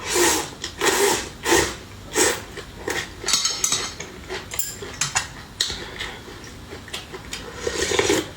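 Kitchenware knocking and clattering: a run of sharp knocks, roughly one a second, with a ringing, clinking stretch in the middle and a longer scraping clatter near the end.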